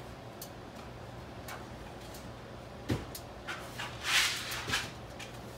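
Kitchen handling sounds while sugar is being fetched: a few light clicks, a knock about three seconds in, then a short rustling scrape just after four seconds with a couple of clicks, over a faint low steady hum.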